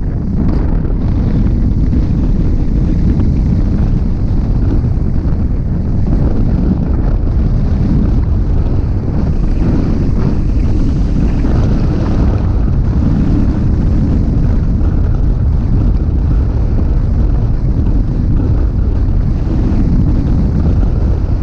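Loud, steady wind rushing over a camera microphone mounted on a hang glider in flight, with low buffeting from the airflow at flying speed.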